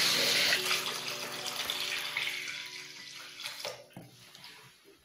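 Water running into a plastic basin over raw chickens in their marinade. The flow is loudest at first, then tapers off and fades to almost nothing near the end.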